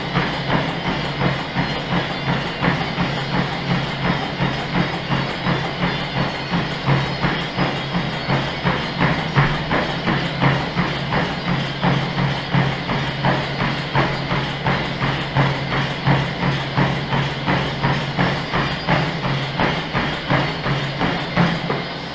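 A runner's feet strike a motorised treadmill belt in a steady, even rhythm over the constant hum of the treadmill's motor. The footfalls stop right at the end as he steps off onto the side rails, and the belt keeps running.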